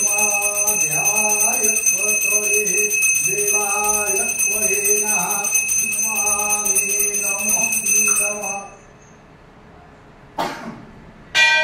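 Brass puja hand bell rung continuously, a steady high ringing with a voice chanting over it. The ringing stops about three-quarters of the way through; near the end there is a sharp knock, then a bell is struck again.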